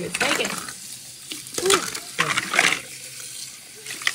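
Tap running into a sink while plastic toy food pieces are rinsed by hand, clattering against each other and the sink in several bursts.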